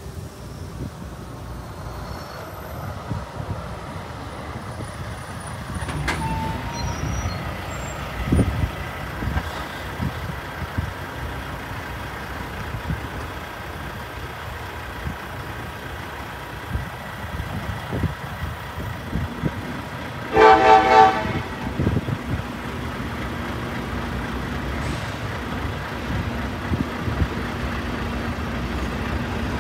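Open-top hopper cars rolling slowly past on the rails, a steady rumble of steel wheels with scattered knocks and clanks. About twenty seconds in, a horn gives one short toot of about a second.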